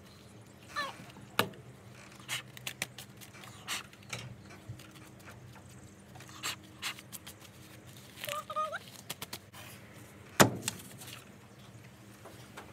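Papers and drawing pins being taken off a cork pin board: scattered clicks and paper rustles, with one loud knock about ten seconds in.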